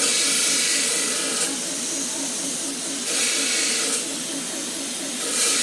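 Compressed air hissing in three bursts of about a second each, over a machine running steadily with a fast, even rhythm.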